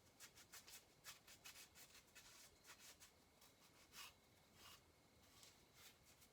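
Faint rubbing and scrubbing strokes of a rag wiping a chainsaw engine's gasket mating surface clean of old sealant. The strokes come fast for the first couple of seconds, then slower and more spread out.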